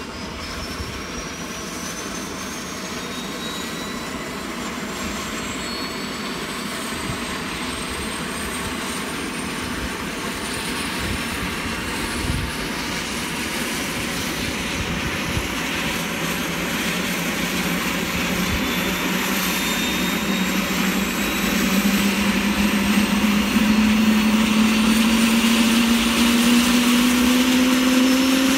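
Airbus AS350 Écureuil helicopter's single turboshaft engine starting up: a high turbine whine climbs steadily in pitch and the sound grows louder as the main rotor spins up. About halfway through, a lower tone comes in and also rises in pitch.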